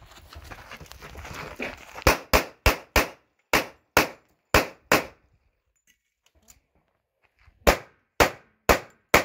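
Rapid pistol fire from an M45A1 1911 in .45 ACP: eight shots in quick pairs over about three seconds starting two seconds in, a pause of about two and a half seconds, then four more quick shots near the end.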